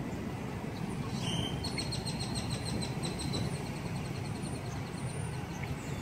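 Steady road noise of a line of police vehicles driving slowly past. About a second in, a run of rapid high-pitched chirps repeats for a couple of seconds over it.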